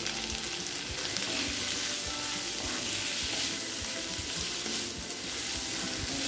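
Cauliflower sizzling as it fries in a cast-iron kadai, with a wooden spatula scraping and knocking against the pan as it is stirred into the ground pepper masala.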